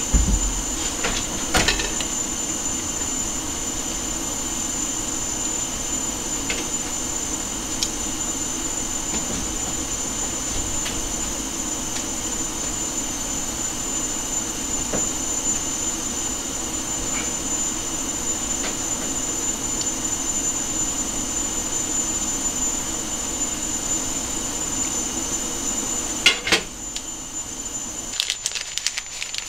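A steady low rushing hum, with a thin high steady tone above it; the hum cuts off about two seconds before the end. A few light clinks of a steel knife and stainless pots come at the start and again near the end.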